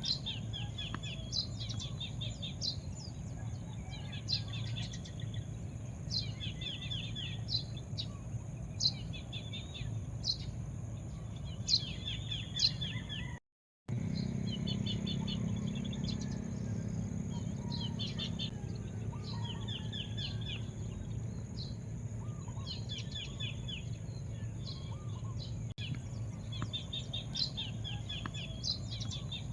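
Birds chirping in short, quick trilled phrases repeated every second or two, over a steady low rumble and a faint steady high hum. The sound drops out completely for about half a second around the middle.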